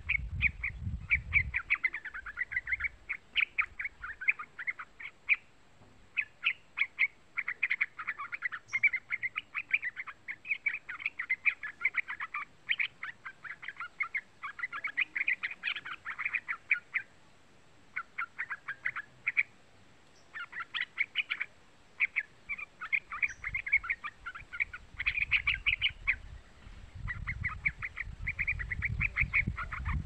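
Young yellow-vented bulbul singing: long runs of quick, bubbly chattering notes in phrases, with a couple of short breaks about two-thirds of the way through. A low rumble sits under the song at the start and over the last few seconds.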